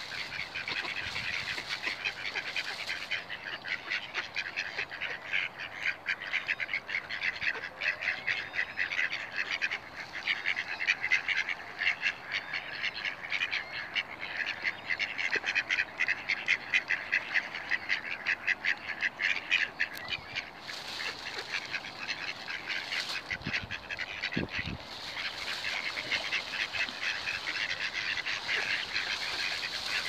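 A flock of waterfowl calling in a constant, rapid chatter of quacks.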